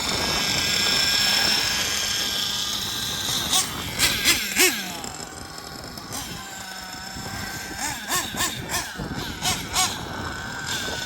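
Kyosho Inferno Neo ST 3.0 nitro RC car's small glow engine running, a steady high whine over the first few seconds that then fades. Near the end come a series of short revs sweeping up and down.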